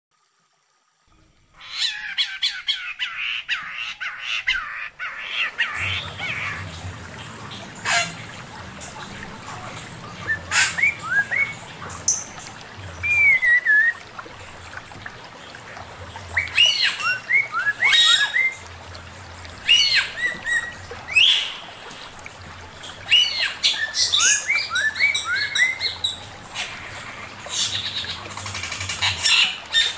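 Male poksay mandarin (a laughingthrush) singing: a burst of dense chattering after a second or so of silence, then loud varied whistles, sliding notes that rise and fall, and sharp calls. A low steady hum runs underneath from about six seconds in.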